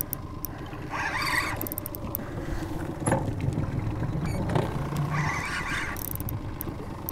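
Spinning reel cranked in short bursts while a hooked walleye pulls against the line, over a steady low hum.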